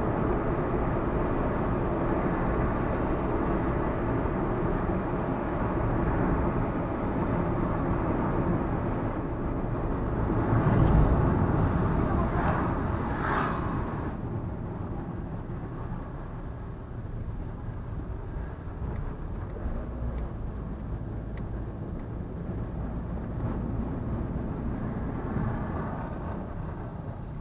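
Steady road noise of a car driving, swelling louder for a few seconds about eleven seconds in, then quieter for the rest.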